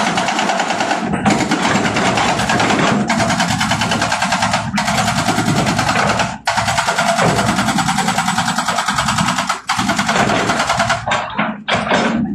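Hydraulic rock breaker on a Hitachi excavator hammering rock with very rapid, even blows. It runs in bursts of one to three seconds with brief pauses between them, and the excavator's engine runs underneath.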